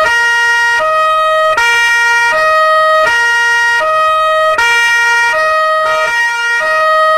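Police siren sounding a two-tone pattern. It switches back and forth between a higher and a lower note, each held for about three-quarters of a second.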